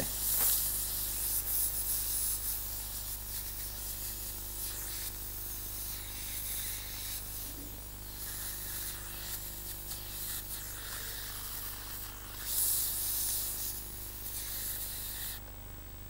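Spotting-table steam gun hissing in gentle, uneven puffs, its low steam flow heating hydrogen peroxide on a stain. The hiss swells briefly about three-quarters of the way through and cuts off sharply near the end.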